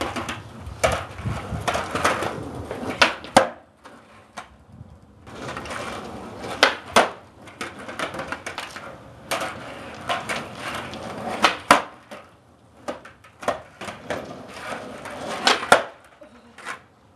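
Skateboard wheels rolling on concrete, each run ending in a sharp clack of the board popping and landing as a flat-ground trick is tried, four times over.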